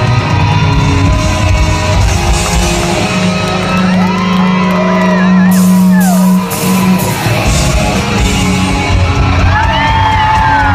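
Live rock band playing loudly in a concert hall, heard from within the crowd, with a long held low note in the middle and audience whoops and shouts over it.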